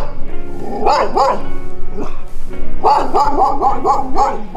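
Dogs barking over background music: two barks about a second in, then a quick run of about six near the end.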